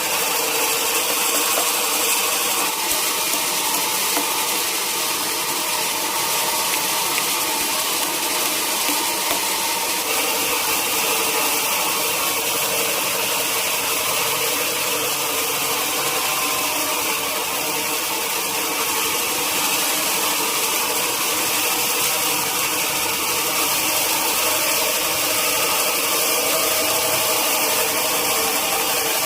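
Sawmill machinery running steadily: a constant mechanical drone with several held tones over a high hiss.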